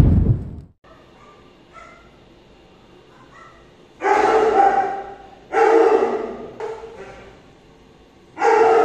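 A swoosh sound effect at the very start, then a dog barking loudly in three spells, each trailing away, the first about four seconds in and the last near the end.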